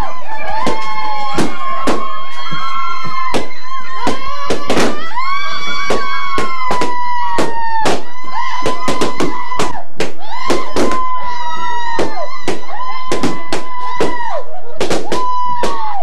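Balloons popping in quick, irregular succession as people kneel and press on them, dozens of sharp pops, over long held toots that droop in pitch as each one ends.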